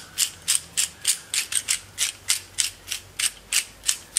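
Hand-held spice grinder being twisted over a tray of flour, grinding seasoning in a quick run of crisp, ratchety clicks, about four a second.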